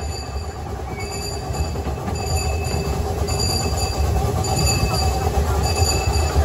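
Open passenger car of a ride-on railroad rolling along the track, a steady low rumble of wheels on rail that grows gradually louder. A short high-pitched squeak repeats about once a second.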